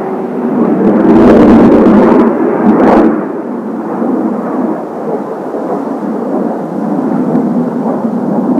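Distant roar of Kawasaki T-4 jet trainers' turbofan engines, a steady rumbling rush. It swells much louder about a second in and gives a sharp crackling burst at about three seconds.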